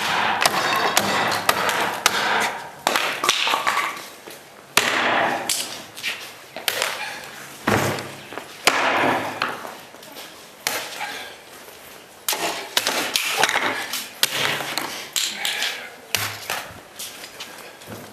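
A large competition cutting knife chopping through targets, a series of sharp strikes at irregular intervals, some with a short crash or rattle after the hit.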